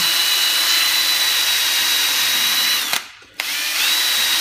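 Cordless drill spinning a medium abrasive flap wheel against a stainless steel pinball ball guide, regraining the metal: a steady high whine over the rasp of the wheel on the steel. The drill winds down and stops about three seconds in, then starts again half a second later, its whine rising back up.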